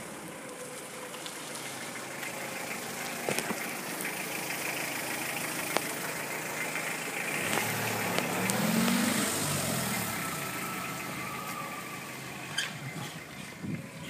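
A car passing by: its engine and tyre noise swell to a peak about two-thirds of the way in, then fade away, with a few sharp clicks along the way.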